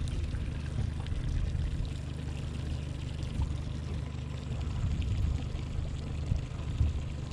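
Mercury outboard motor running at trolling speed, a steady low hum, with water rushing and splashing along the boat's hull.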